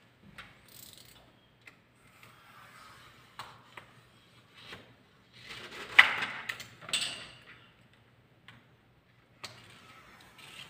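Scattered clicks, taps and short scrapes of hand work on a large glass pane as wet window-tint film is pressed in along the top edge of the frame, with one sharp knock about six seconds in. A faint steady hum runs underneath.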